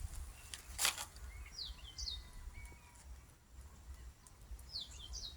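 A small bird calling: two short phrases of quick, high, falling chirps, one about a second and a half in and one near the end. A brief rushing noise burst, the loudest sound, comes about a second in, over a steady low rumble.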